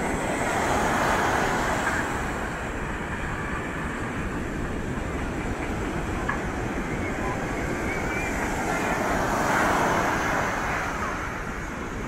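Surf breaking and washing up a sandy beach: a steady rushing of waves that swells twice, about a second in and again near the end. Wind rumbles on the microphone underneath.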